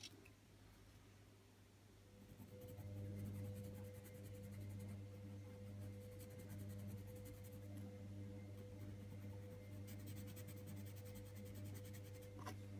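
Faber-Castell Polychromos coloured pencil scratching faintly on paper in quick, short strokes, in two spells, over a steady low hum that comes in about two seconds in.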